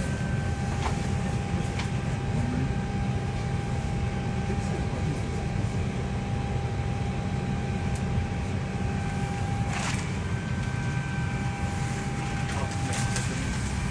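Steady drone of a parked airliner's cabin ventilation, a low rumble with a thin steady whine on top, broken by a few light clicks.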